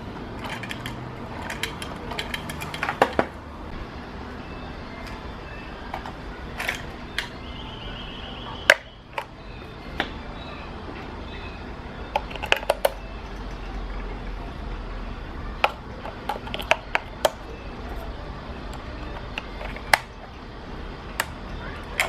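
Scattered clicks, taps and light clinks of a plastic dog coin bank and coins being handled, some in quick little clusters, over a steady low hum.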